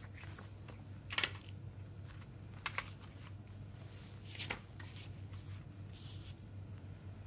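Paper and plastic handling: a CD booklet, obi strip and plastic jewel case being moved about on crinkled paper. There are soft rustles and a few short sharp clicks, the strongest about a second in, near three seconds and about four and a half seconds in, over a faint steady low hum.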